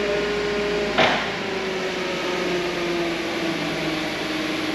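Propane forklift running with its hydraulics working as the mast tilts back: a steady whine that drifts slowly lower, with one sharp click about a second in.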